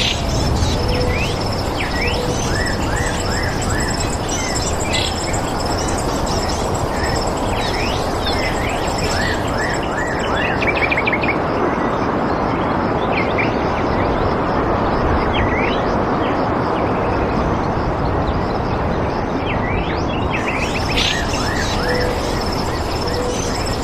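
Outdoor nature ambience: a steady rushing hiss under many short, quick bird chirps, with a high, steady pulsing trill of insects throughout.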